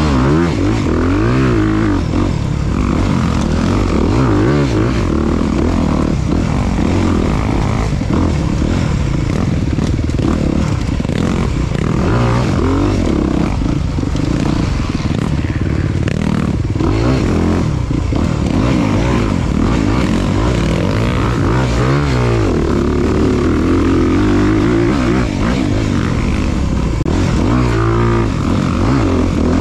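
Off-road motorcycle engine running hard, its pitch rising and falling again and again as the throttle is worked on and off, with a noisy rush and clatter over it.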